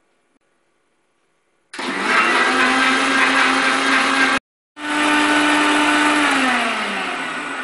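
Electric mixer grinder blending milk, betel (paan) leaves and ice cream in its steel jar. The motor starts suddenly about two seconds in and breaks off abruptly for a moment. It then starts again and runs loudly, and near the end its pitch falls as it winds down.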